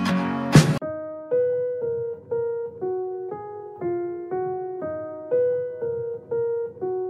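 Background music: a fuller passage ends under a second in, then a slow piano-like keyboard melody of single notes, about two a second, each fading away.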